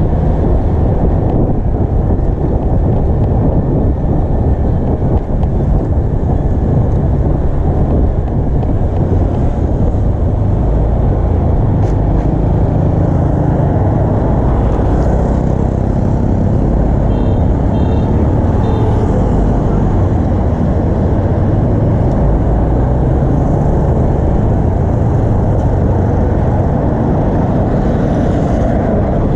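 Steady, loud low rumble of a road vehicle or traffic with wind on the microphone, and a few short faint high beeps just past the middle.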